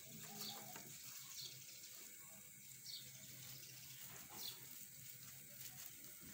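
Faint bird chirps: short falling notes about every second or so, over a low steady hum.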